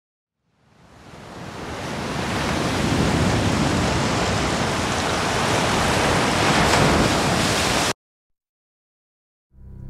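A dense rushing noise swells up over a couple of seconds, holds at a steady loud level, then cuts off abruptly into dead silence.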